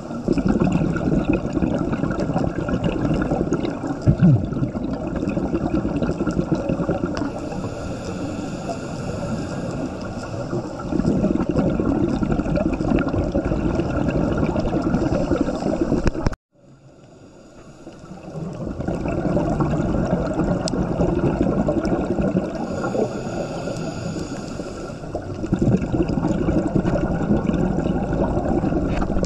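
Steady churning water noise with a constant hum underneath. It cuts out abruptly about 16 seconds in and fades back in over the next couple of seconds.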